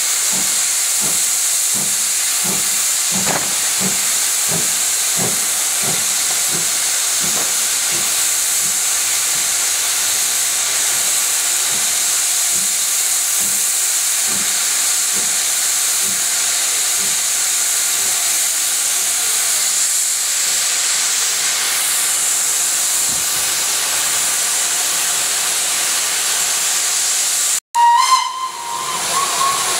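Steam locomotive at work: a steady loud hiss of steam with regular exhaust beats, about two a second, that fade away over the first twenty seconds. Near the end, after a brief break, a steam whistle sounds one held note.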